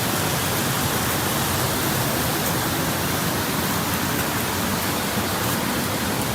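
Steady rushing of running water, a mountain stream flowing among icy rocks, an even hiss that does not change.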